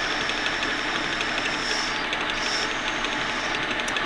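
Metal lathe running, its collet chuck spinning while a high-speed steel tool bit turns the outside of a sintered bronze bushing. A thin high whine from the cut fades out about halfway through, leaving the steady running sound of the lathe.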